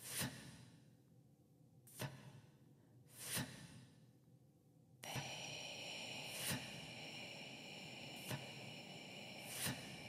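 Ambient soundtrack of soft, breath-like whooshes, six of them at uneven intervals of one to three seconds. About halfway through, a steady high drone of several held tones comes in beneath them.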